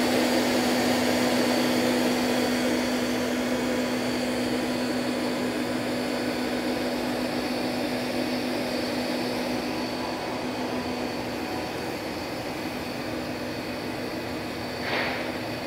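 Steady electric hum and whir of running machinery in a machine shop, with a strong low tone and a faint high whine, slowly easing off. A brief short noise comes near the end.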